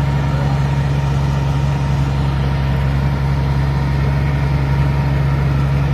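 Rice combine harvester's diesel engine running at a steady, unchanging drone.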